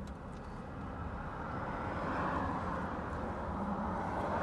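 Vehicle noise: a steady low hum with a rushing sound that swells about two seconds in and again near the end.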